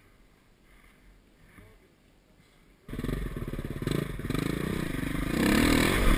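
Near silence for about the first three seconds, then a dirt bike engine cuts in suddenly and runs under throttle, its note climbing near the end as it revs.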